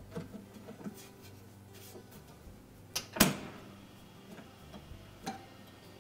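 Light metallic clicks and knocks from seating a radiant cooktop element's spring mounting tabs into a steel mounting bracket. A sharp double clack about three seconds in is the loudest, and a smaller knock comes a couple of seconds later.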